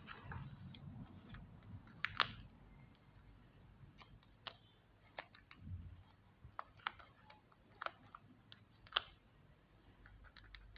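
Scattered light clicks and taps from hands handling craft materials, about a dozen in all, the sharpest about two seconds in and again near the end.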